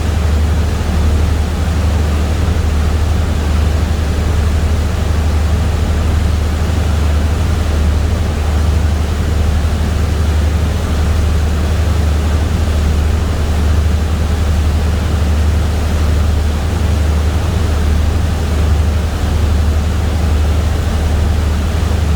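Steady low drone of a boat's engine under an even rushing noise of water and wind, unchanging throughout.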